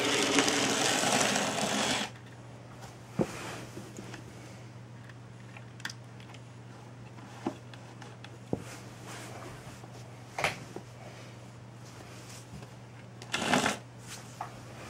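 A loud whirring noise for the first two seconds, then a low steady hum with scattered light clicks and taps as N gauge model coaches are lifted and set back on the rails by hand after a derailment.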